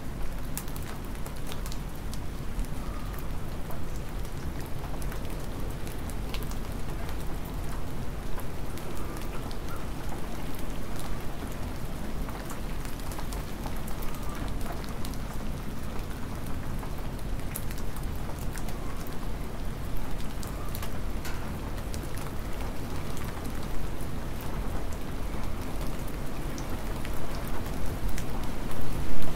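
Cold, hard spring rain falling steadily, with many individual drops ticking on nearby surfaces; it grows louder near the end.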